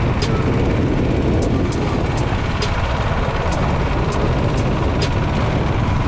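Royal Enfield motorcycle being ridden at road speed: the engine running steadily under wind noise on the microphone.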